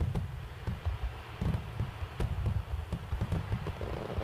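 Fireworks display: a dense, continuous run of aerial shell bursts, low booms and rumble with sharp cracks several times a second.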